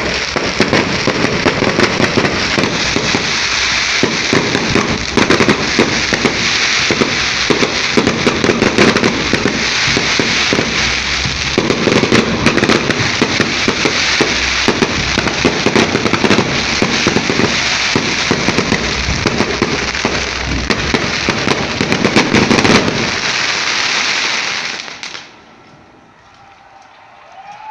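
A dense barrage of fireworks and firecrackers going off without a break, a rapid crackle of countless bangs, which stops abruptly near the end.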